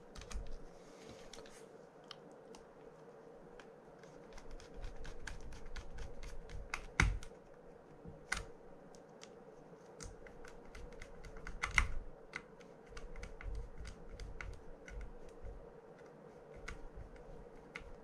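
Small irregular clicks and ticks of a screwdriver and screws on a Penn Squall 60LD fishing reel as two screws are driven into its side plate, with two louder knocks, one about seven seconds in and one near twelve seconds.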